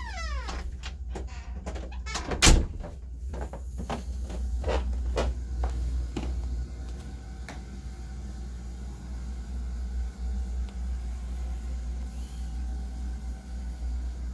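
Footsteps going down carpeted stairs: a run of soft knocks and thuds with one loud thump about two and a half seconds in. After that, a steady low rumble carries on with only faint sounds over it.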